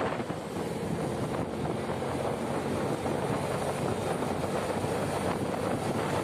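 A vehicle travelling along a road: a steady rush of engine and road noise, with wind blowing on the microphone.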